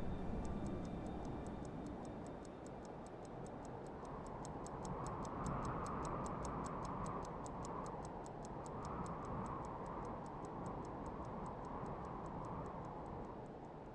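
A watch ticking in a rapid, even rhythm over a steady rushing background noise.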